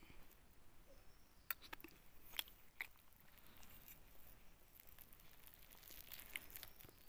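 Near silence with a few faint clicks and taps from eating rice with a spoon out of a steel lunch box.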